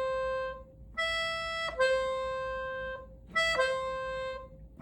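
Accordion imitating a doorbell chime: a falling two-note ding-dong, a higher note stepping down to a lower held note, played twice.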